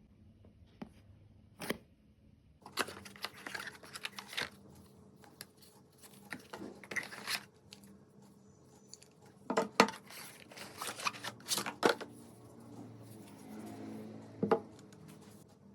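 Cardboard packaging being torn open and handled: scattered tearing and rustling with sharp clicks and knocks, the loudest a little past the middle.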